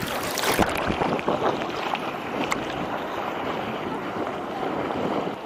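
Wind buffeting the microphone over sloshing sea water, a steady rushing noise with a few small splashes and clicks.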